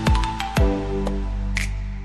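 Background music with a beat: two deep kick-drum hits in the first half second over held notes, with short ticks on top, then the held notes carry on alone.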